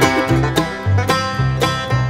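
Background music: an upbeat bluegrass-style string tune with plucked strings over a bass note about twice a second.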